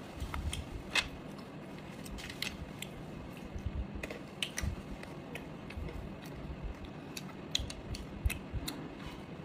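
Chewing food with the mouth closed: irregular small crisp clicks and cracks every half second or so, over a soft low rumble of jaw movement.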